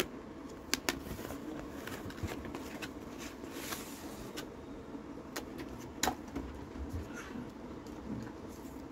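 Cardboard packaging and a paper invoice being handled and pulled apart: scattered sharp clicks and taps, with a brief paper rustle near the middle, over a steady low hum.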